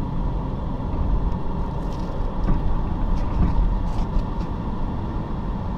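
Road and engine noise inside a moving car's cabin: a steady low rumble.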